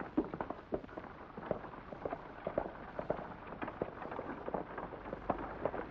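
Horses' hooves clopping on a dirt road, an irregular clatter of knocks from a ridden horse and a buggy horse, over a steady hiss.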